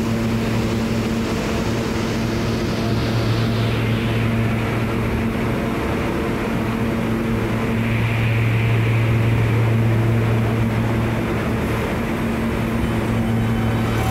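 New York City subway train running: a steady rumble under a low electric hum, swelling a little about two-thirds of the way through.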